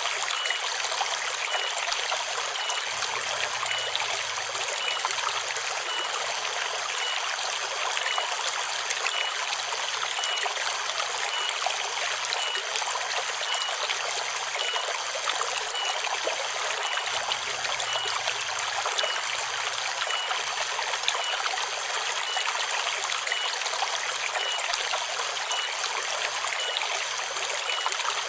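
Forest river water running in a steady, even babble, with a cicada's short high note repeating about twice a second over it.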